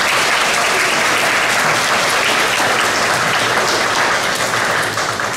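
Audience applause: many people clapping steadily, with no music playing.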